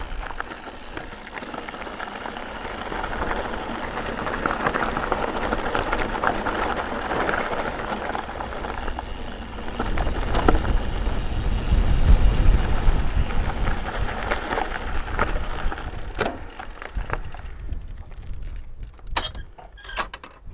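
Mountain bike rolling over a rough trail: steady tyre and rattling noise with scattered knocks. About halfway through there is a few seconds of low wind rumble on the microphone, and there are brief high squeals twice. It quietens and breaks up near the end.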